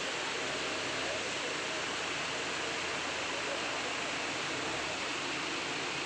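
Water rushing steadily over rock ledges and stones in a shallow stream, an even, unbroken rush.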